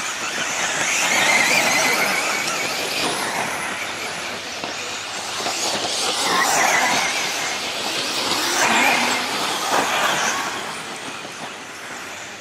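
Several 1/10-scale electric 4WD off-road RC buggies racing on a dirt track: high-pitched motor whine with the hiss of tyres on loose dirt. The sound swells and fades about three times.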